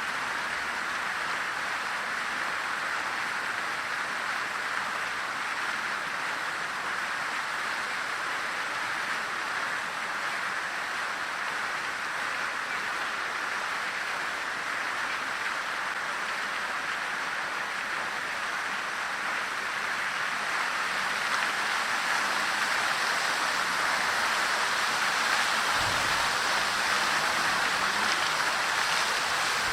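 Park fountain water falling and splashing into its basin: a steady rushing hiss that grows a little louder about two-thirds of the way through.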